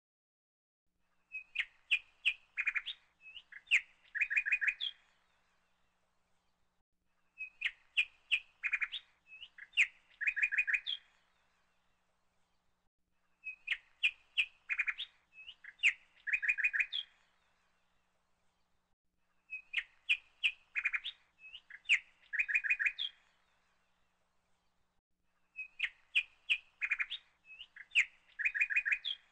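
A short phrase of bird chirps and trills, played five times at even intervals about six seconds apart with dead silence between. The repeats are identical, the mark of a looped recorded clip rather than live birds.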